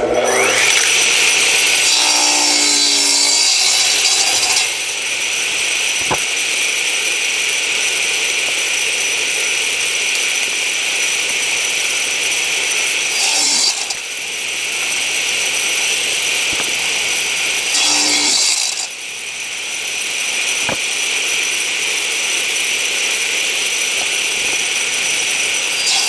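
Power saw running and crosscutting 1.5-inch-thick oak boards to length. It starts abruptly, runs steadily with a high motor whine, and its level shifts a few times as cuts change.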